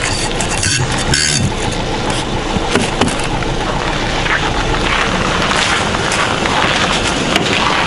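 Steady noise of car engines idling to warm up in the frost. About a second in, a brush sweeps a couple of strokes of frost off a car windshield.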